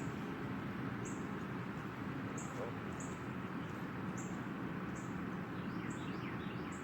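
A bird chirping: short high notes repeating roughly once a second, with a few quick falling calls near the end, over a steady low outdoor rumble.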